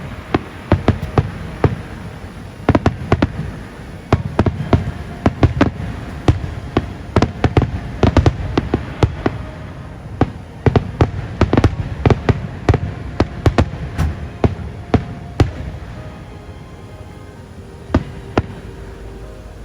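Fireworks exploding in rapid succession: many sharp bangs over a low rumble. They thin out about three-quarters of the way through, leaving one last bang near the end, with music playing faintly underneath.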